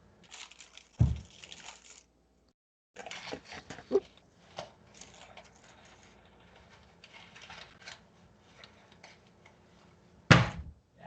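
Kitchen handling noises while measuring out dry ingredients: scraping and clattering of spoons and containers, with two heavy thuds, about a second in and a louder one near the end.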